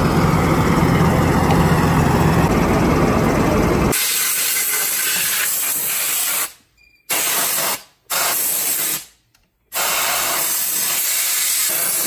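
An engine running with a steady low hum for about four seconds. It cuts to a steady high hiss, broken three times by short gaps of near silence.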